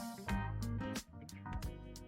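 Music with a steady beat over a low bass line, plausibly guitar-led.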